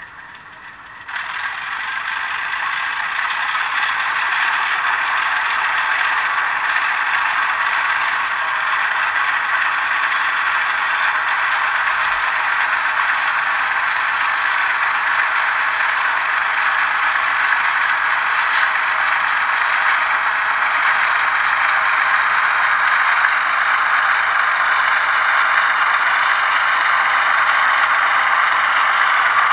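ALCO 244 turbocharged diesel prime mover sound from a TCS WOW DCC sound decoder, played through the model locomotive's small speaker. About a second in the throttle is opened: the engine sound jumps louder, then keeps building slowly as it works up through the notches. It sounds thin, with almost no bass.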